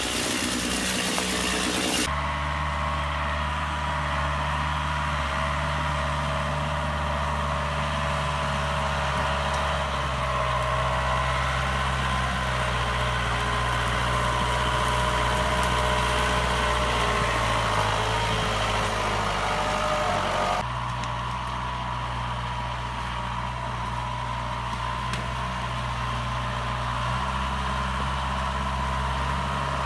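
A chainsaw runs briefly, then gives way to a New Holland 2120 farm tractor's diesel engine running steadily. The engine speed shifts a little a few times.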